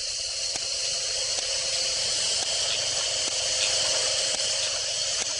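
Milking machine running on a cow, its vacuum hissing steadily with faint regular ticks about twice a second.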